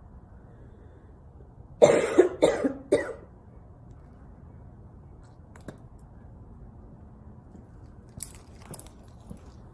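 A young woman coughing: a short fit of three or four harsh coughs in quick succession about two seconds in, a smoker's cough. A few faint short sounds follow near the end.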